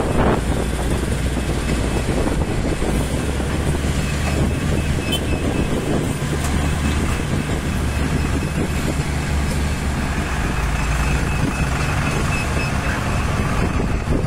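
Diesel engines of a Liugong wheel loader and Mitsubishi Fuso dump trucks running steadily, a low, even drone with a faint high whine over it. At the start the loader's bucket is emptying gravel into the truck's steel bed, heard as a brief rush of noise.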